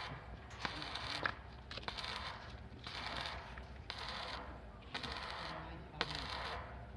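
Metalwork on a steel frame: a rough crackling, scraping noise that comes in short bursts about once a second, with sharp metallic clicks between them.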